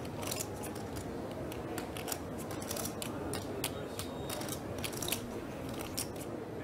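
Poker chips clicking together: a continuing, irregular run of light clicks over a steady low background hum.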